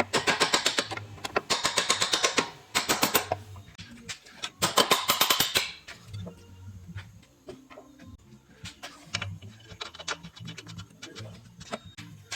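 Rapid clicking rattle of a wrench working suspension bolts, in four short bursts of about ten clicks a second. Then lighter scattered clicks and knocks over a low hum.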